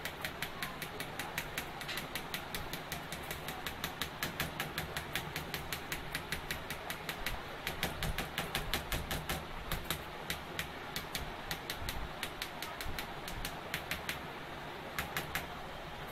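Rapid run of sharp clicks, several a second, thinning out near the end, over a low steady rumble.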